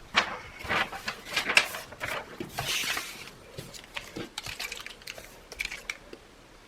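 Pump spray bottle of mica mist spritzing several short hissing sprays, with clicks of the trigger and handling; the longest spray comes about two and a half seconds in, and later there are only a few light clicks.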